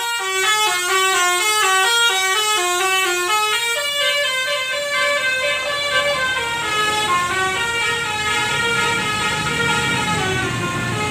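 Tour bus's 'basuri' telolet horn playing a fast tune of short notes that jump up and down in pitch, growing softer in the second half.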